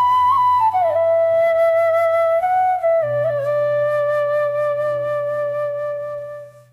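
Background music: a slow melody of long held notes over low sustained bass notes, fading out near the end.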